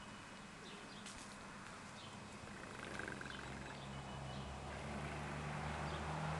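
Faint street ambience: a few birds chirping now and then, and a vehicle engine's low hum growing louder in the second half.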